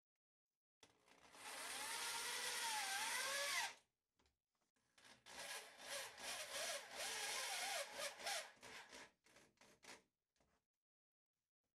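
Corded drill driving self-drilling truss screws through plexiglass into the crib rail: two runs of a few seconds each, the motor's whine rising and falling in pitch with the trigger, the second run stop-start.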